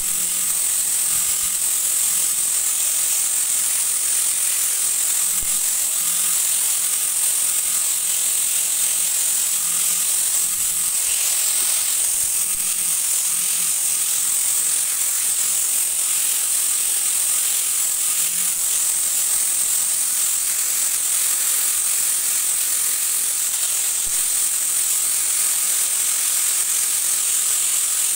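Handheld electric angle grinder with a sanding drum attachment, running steadily while sanding the edges of a wooden toy gun stock: a continuous high-pitched hiss of abrasive on wood over the motor's whine.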